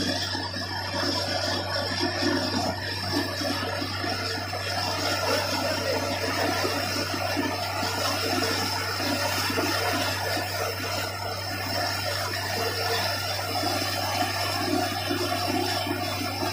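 Borewell drilling rig running steadily under a constant low hum, with a continuous rush of water and rock cuttings spraying out of the bore hole.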